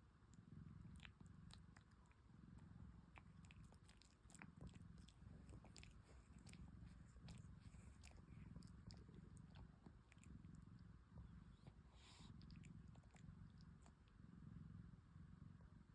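A sleeping domestic cat snoring softly in slow, even breaths, with scattered small clicks from its mouth through the first ten seconds or so and a brief rustle about twelve seconds in.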